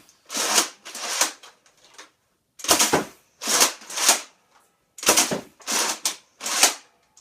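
Nerf Mega blaster being cocked over and over: about ten plastic sliding rasps, each starting with a clack, in three quick clusters as the long priming stroke is pulled back and pushed forward.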